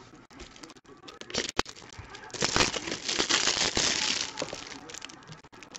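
Clear cellophane wrapping on a pack of trading cards being torn open and crinkled by hand, with a few sharp clicks about a second and a half in and the loudest crinkling in the middle.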